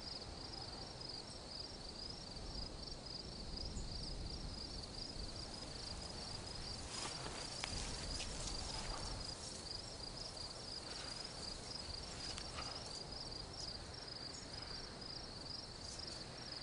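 Crickets chirping in a steady, evenly pulsing rhythm. Rustling of grass and clothing comes from about seven to nine seconds in, and again briefly around twelve seconds.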